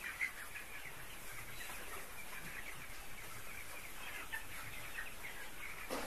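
A flock of chickens in a poultry house, many birds clucking and peeping at once in a steady, faint din, with one slightly louder call just after the start.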